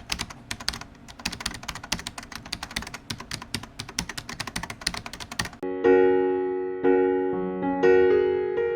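Rapid, irregular keyboard-typing clicks for about five and a half seconds, then background music in which an electric piano strikes chords about once a second, each ringing and fading.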